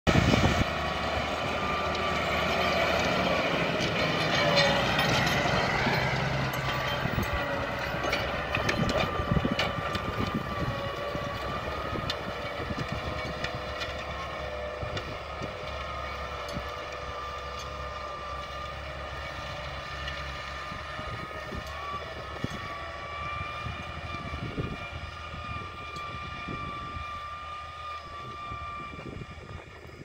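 Massey Ferguson 3080 tractor's diesel engine running steadily under load as it pulls a disc plough, slowly growing fainter.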